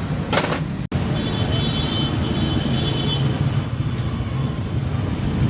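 Steady low mechanical rumble, with a faint high-pitched whine for about two seconds in the middle and a brief cut-out about a second in.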